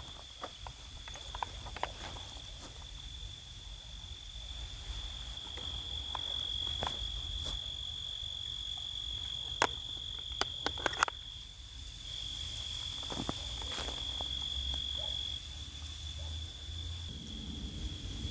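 A cricket's steady high-pitched trill at night, with scattered light clicks and taps and a low rumble of wind or handling on the microphone.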